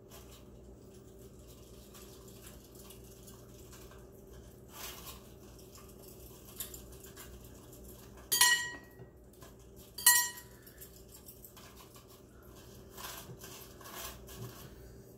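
Two sharp metallic clinks about two seconds apart, each ringing briefly, from gold jewelry being handled against a hard dish, with soft handling noises between them.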